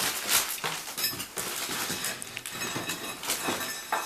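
A run of small clinks and scrapes as loose bricks and mortar are worked and shifted in an old wall being opened up.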